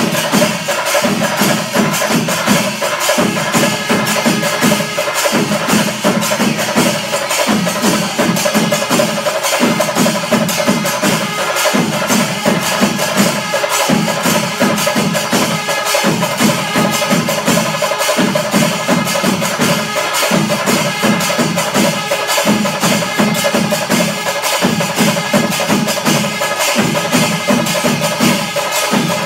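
Kerala panchari melam ensemble playing at full pace in its fifth kaalam, the fastest tempo stage. Massed chenda drums and clashing elathalam cymbals keep up a dense, continuous rhythm, with low drum strokes coming in phrases about every two seconds, while wind instruments hold steady tones above.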